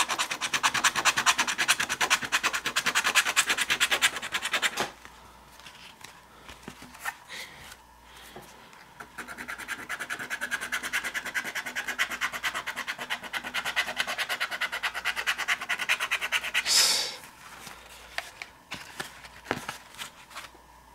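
Scratch-off lottery ticket being scratched, its coating scraped off in quick rapid strokes. There are two spells of scratching, with a quieter gap between them, and a single louder swipe near the end.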